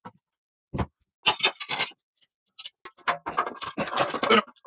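Short clicks, knocks and scrapes of e-bike parts being handled and fitted during assembly. A few scattered ones at first, then a denser run over the last second and a half.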